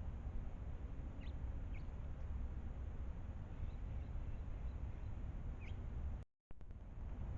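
A few brief, thin bird chirps, spaced a second or two apart, over a steady low outdoor rumble. The sound drops out completely for a moment about six seconds in.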